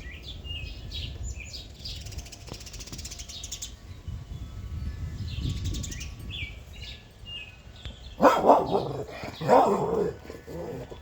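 Small birds chirping, then a dog barks loudly several times about eight seconds in.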